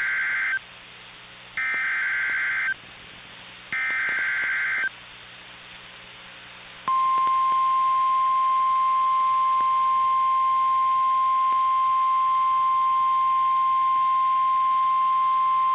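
NOAA Weather Radio alert for a severe thunderstorm warning: three bursts of SAME digital header data, each about a second long and a second apart, warbling and buzzy. About two seconds later the steady single-pitch 1050 Hz warning alarm tone starts and holds for about nine seconds.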